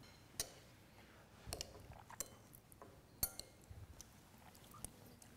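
Knife and fork clinking against a ceramic plate while a dish is cut: a handful of faint, sharp clinks at uneven intervals.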